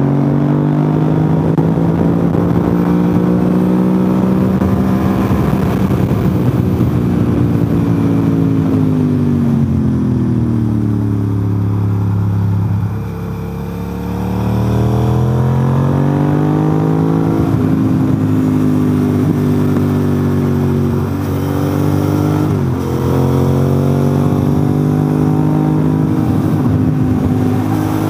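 Motorcycle engine under way, heard from on board, its pitch rising and falling as the rider accelerates and slows. The pitch drops for a few seconds near the middle, climbs again, then holds fairly steady with a couple of brief dips.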